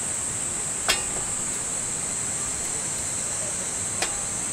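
Metal fire tongs clinking twice, about a second in and near the end, each a sharp click with a brief metallic ring, over a steady high-pitched drone of insects.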